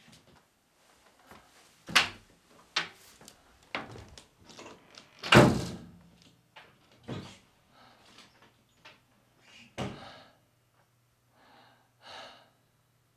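A door being opened and shut amid a string of knocks and thuds, the loudest thud about five and a half seconds in. A couple of short breathy sounds follow near the end.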